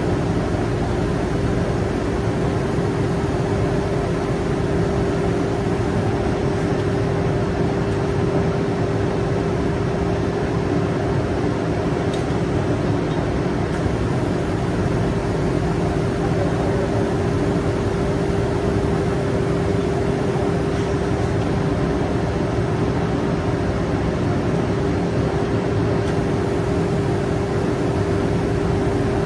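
Oil drilling rig machinery running on the drill floor: a loud, steady mechanical drone with a constant hum that does not change.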